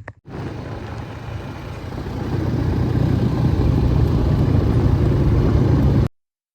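Motor vehicle engine running, louder from about two seconds in, then cut off abruptly.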